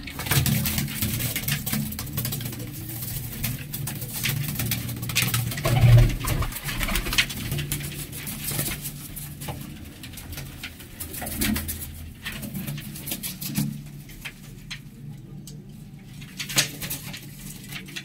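Domestic pigeons cooing in a loft, low coos repeating throughout, with many short scratchy clicks and rustles among them.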